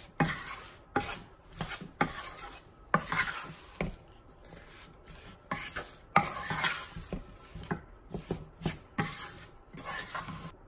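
Wooden spatula stirring thick mango pickle in a dark nonstick pot, with irregular scrapes and knocks against the pan.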